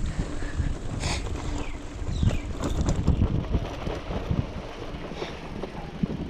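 Wind buffeting the microphone over the rumble of a mountain bike's tyres on a rough dirt track, with scattered knocks and rattles as the bike goes over bumps.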